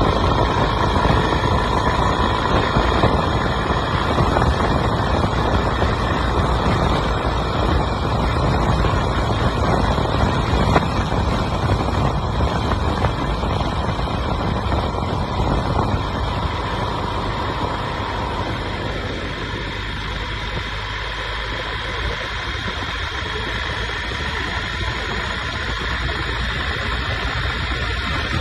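BMW motorcycle riding into strong wind: steady wind rush on the microphone over engine and road noise. A faint steady whine dies away about two-thirds of the way through, and the noise eases a little after it.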